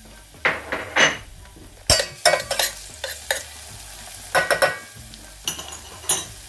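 Garlic and ginger frying in vegetable oil in a pan, stirred with a utensil: a string of short, sharp scrapes against the pan over a low sizzle.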